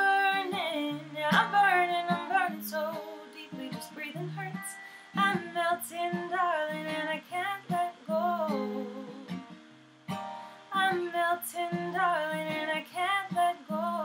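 Acoustic guitar strummed in a slow song while a woman sings over it in three drawn-out phrases with short gaps between them.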